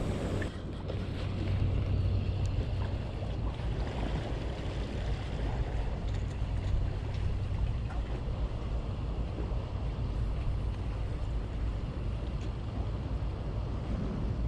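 Wind buffeting the microphone and water washing against jetty rocks, with a steady low hum underneath.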